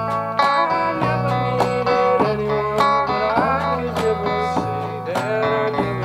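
Acoustic string band playing an instrumental passage: banjo and acoustic guitar strumming a steady rhythm while a lead guitar plays a melody with sliding, bent notes.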